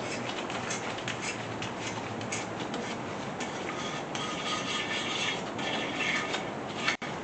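Thread chaser being turned in a head bolt hole of a Chevy small-block 350 block: metal-on-metal scraping with scattered light clicks, cleaning up the threads. The scraping is strongest in the middle of the stretch.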